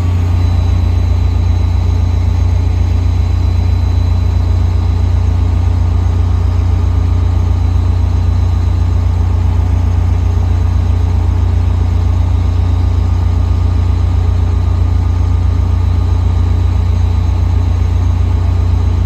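Caltrain train standing at idle: a steady, loud low drone with faint constant whines above it.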